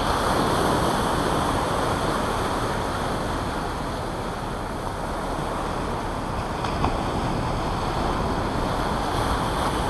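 Ocean surf breaking and washing up the beach in a steady rush.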